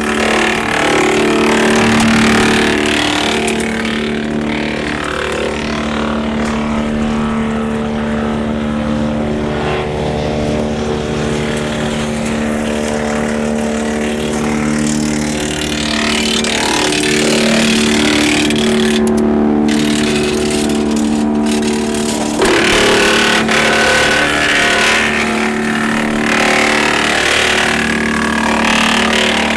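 Tractor engine driving a Woodland Mills TF810 Pro twin-flywheel PTO wood chipper, running steadily at constant speed with a strong steady hum. Louder rushing spells come in near the start and again from about three-quarters of the way through.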